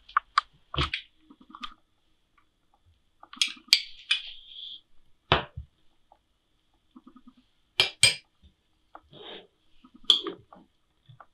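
A metal spoon and glass dishes clinking and knocking, about a dozen sharp taps spread unevenly with quiet gaps between them.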